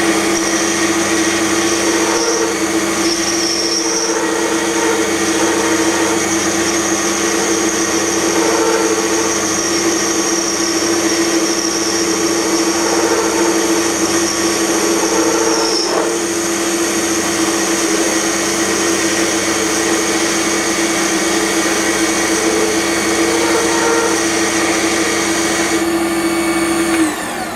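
Small metal lathe running and cutting a metal shaft, with a steady motor hum and a high whine that stops about halfway through. Near the end the lathe is switched off and its motor and spindle wind down.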